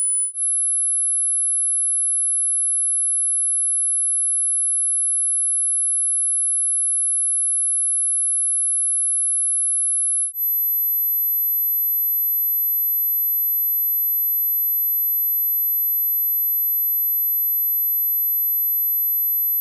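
Pure sine-wave test tones for tinnitus frequency matching. The tail of a 10,000 Hz tone steps up to a steady 11,000 Hz tone for about ten seconds, then after a brief break a steady 12,000 Hz tone.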